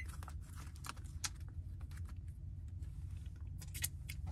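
Scattered light clicks and crinkles of an aluminium foil meal tray and its lid being handled, over a steady low hum.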